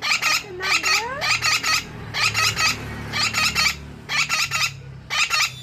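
Young parrot giving harsh, chattering calls: about seven quick bursts, each a rapid run of three to five scratchy notes.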